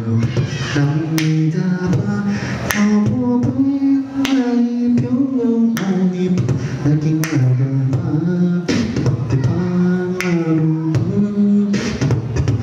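Human beatboxing into a handheld microphone: a sung, stepping bass melody with a sharp snare-like hit about every second and a half.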